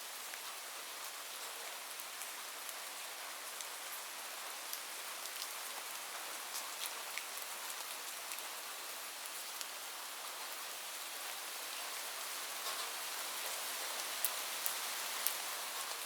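Heavy rain falling on a roof: a steady hiss with many individual drops ticking sharply on top, growing slightly louder in the last few seconds.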